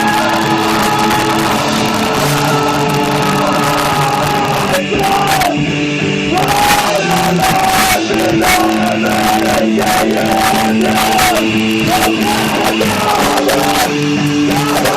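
Live punk band playing loud, with guitars, drums and shouted vocals coming in about five seconds in, in a rough, distorted recording.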